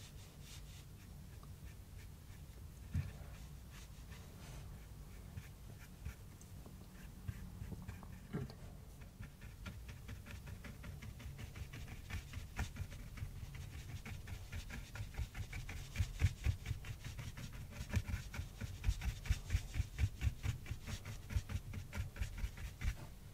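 Paintbrush dabbing thick gouache onto cardboard: soft, quick taps, sparse at first, then faster and denser in the second half.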